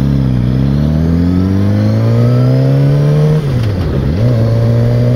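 Suzuki GSX-R600's inline-four engine pulling under acceleration, its pitch climbing steadily, then falling sharply about three and a half seconds in, as on a gear change, before settling into a steady cruise.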